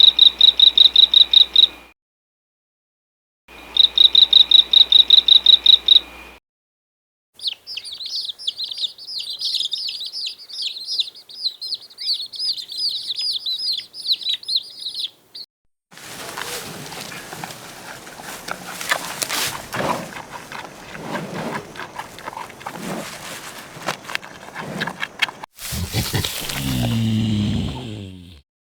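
Animal sounds in separate clips. First, two bursts of fast, even cricket chirping. Then several seconds of birds chirping. Then a noisier stretch full of clicks, and a short, lower call sliding in pitch near the end.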